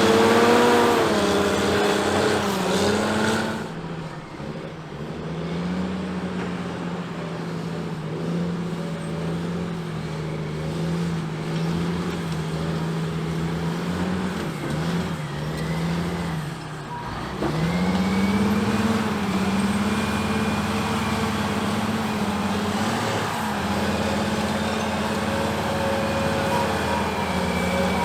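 Caterpillar 627G twin-engine scraper's diesel engines running steadily. The note sags and recovers: the sound drops and thins about four seconds in, then dips briefly again about two-thirds of the way through before coming back up a little louder.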